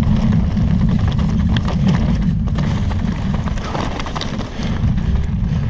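Chainless downhill mountain bike descending a rough dirt and gravel track at speed, heard from a camera on the bike: a steady, loud low rumble of wind and tyre noise with a constant clatter of stones, frame and suspension rattles.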